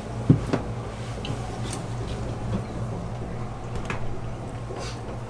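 Scattered light clicks and knocks from hands handling a marine toilet's hoses and fittings, the sharpest about a third of a second in, over a steady low hum.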